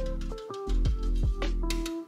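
Instrumental background music with a steady drum beat and deep bass notes.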